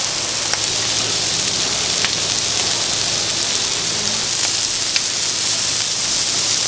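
Chicken-heart and chicken skewers sizzling in oil on a flat griddle: a steady hiss with a few faint pops.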